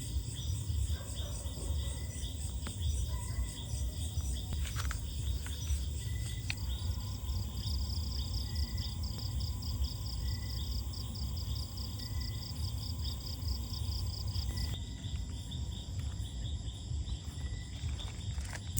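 Insects chirping in a fast, even pulsing trill that grows stronger for several seconds in the middle, over a steady low rumble.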